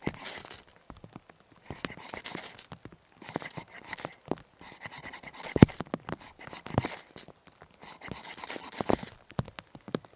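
Scraping and crunching from wet birch bark and fatwood tinder being worked by hand, in spells of about a second, with many sharp knocks and one loud knock about halfway through.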